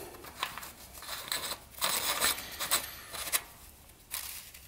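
Metal oil filler cap being screwed back onto an engine's cam cover by a gloved hand: a run of short, irregular scrapes and clicks of the cap and threads, with glove rubbing.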